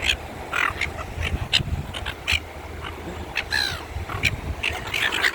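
Seagulls calling in many short squawks, with a longer falling cry about three and a half seconds in, over a steady low rumble.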